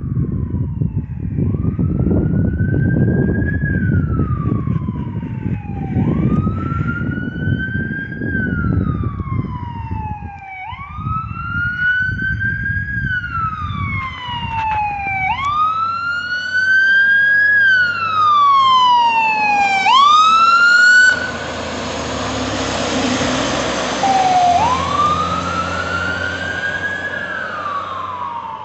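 A fire engine's wail siren rising and falling every few seconds. It gets louder as the engine approaches, and the sweeps quicken. About two-thirds of the way through, the wail gives way to a few seconds of loud rushing noise, then returns and fades as the engine moves off.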